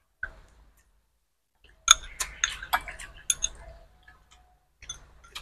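Chopsticks clicking against porcelain rice bowls during a meal: a quick run of light clinks and taps for about a second and a half, with a few fainter ones near the end.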